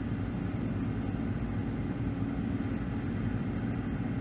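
A steady low hum with a faint hiss over it, unchanging throughout.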